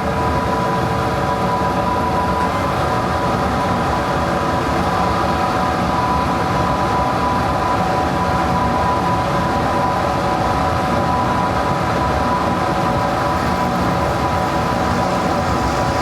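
Metal lathe running steadily with a constant whine, taking a light facing cut across a white bronze driver-center casting.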